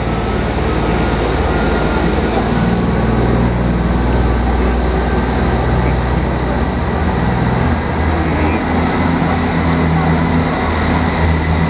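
Class 158 diesel multiple unit standing at the platform with its underfloor diesel engines idling: a steady low drone.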